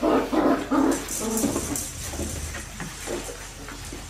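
Young Australian Shepherd puppy yapping: three short, loud yips in quick succession in the first second, then fainter calls.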